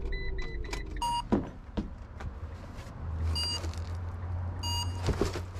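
Electronic beeps over a delivery van's engine idling: a few quick high beeps at the start, then three longer beeps spread over the next few seconds, with a couple of small knocks in between.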